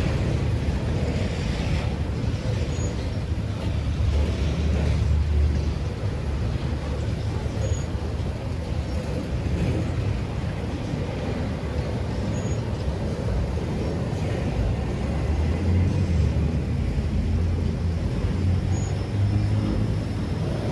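Norfolk Southern train: a steady low rumble that swells and eases a few times.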